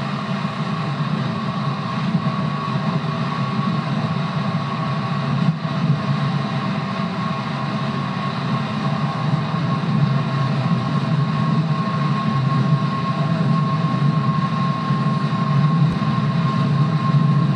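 JR 211 series electric train running: the steady whine of its outer-fan traction motors over a low, even rumble of wheels on track, the whine easing slightly lower in pitch.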